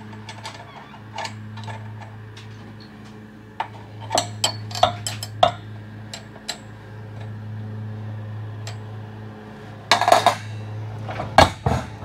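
Steel winding bars clinking against a garage door torsion spring's winding cone and shaft as they are handled and set in the cone. The sharp metallic clinks come in a cluster about four to five seconds in and again near the end, over a steady low hum.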